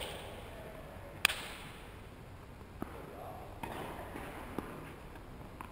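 A tennis ball struck by a racket: one sharp crack about a second in, followed by a few fainter taps.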